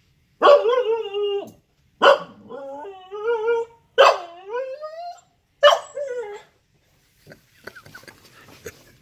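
Siberian husky puppy giving four drawn-out, wavering barks in a row, each starting sharply, a play invitation aimed at another dog. Faint rustling and light clicks follow near the end.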